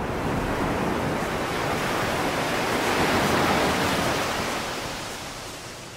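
AI-generated weather ambience: a rain sound layered with a second weather loop. It makes an even hiss that swells toward the middle and fades out near the end.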